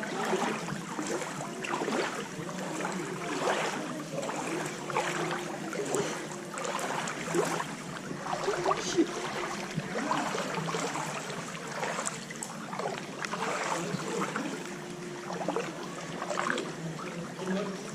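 Floodwater sloshing and splashing in irregular surges, about once a second.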